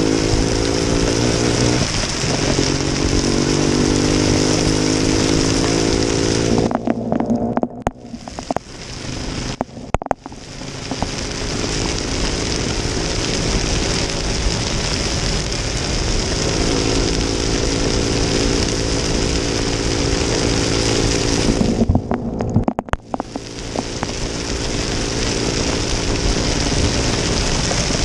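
Honda Dash 125 two-stroke motorcycle engine running under way, its pitch climbing steadily as it accelerates, twice. A loud hiss of heavy rain runs under it, dropping away briefly about seven seconds in and again near twenty-two seconds.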